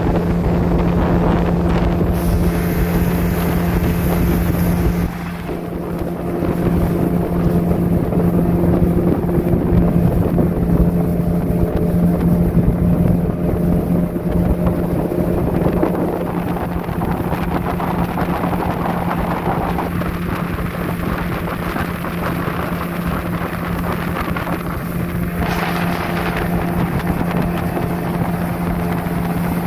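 A small boat's motor running steadily underway, a constant droning hum, with wind rushing over the microphone.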